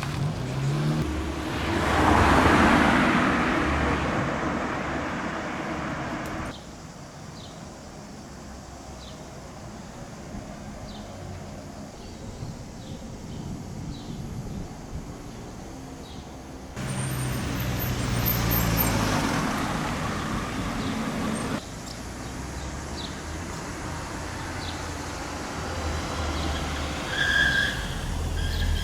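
City street traffic: a car passes close about two seconds in and another around eighteen seconds, engine hum and tyre noise swelling and fading, with quieter street background between. The background changes abruptly several times.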